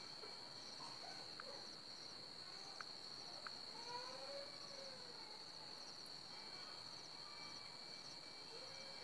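Faint, steady, high-pitched insect chirring, with a few soft ticks in the first few seconds.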